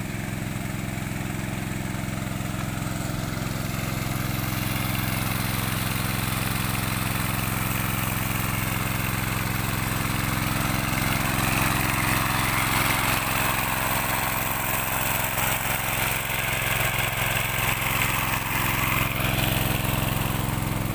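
Small Robin petrol engine running steadily, driving a high-pressure spray pump, with a hiss growing louder over the first several seconds.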